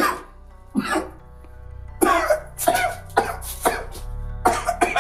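A man's coughing fit: repeated hard coughs that come closer together from about two seconds in, over background music with held tones.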